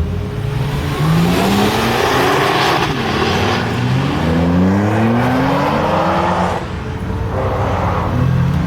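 Supercar engine accelerating hard through several upshifts: the note climbs in pitch, drops at each shift and climbs again. It eases off briefly near the end before picking up.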